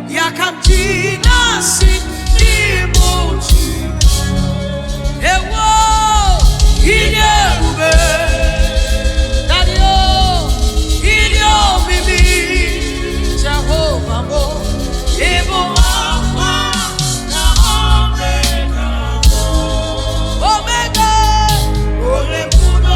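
Live gospel praise music: a lead voice sings long, wavering, vibrato-laden lines over a band with a heavy bass and a steady drum beat.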